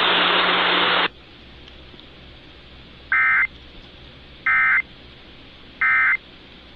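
A loud hiss of radio static with a low hum, which cuts off about a second in. Then come three short bursts of warbling digital data tones, each about a third of a second long and evenly spaced: the EAS end-of-message code that closes an Emergency Alert System broadcast.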